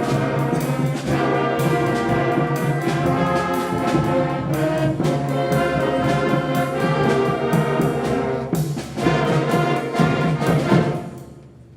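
A 5th and 6th grade concert band playing, with brass carrying the chords over regular drum hits. The band cuts off on a final accented chord about eleven seconds in, and it rings away in the hall: the end of the piece.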